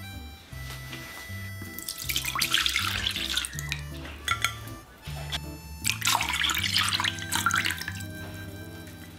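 Soy sauce and water pouring into a stainless steel saucepan in two pours, the first about two seconds in and the second about six seconds in, over background music.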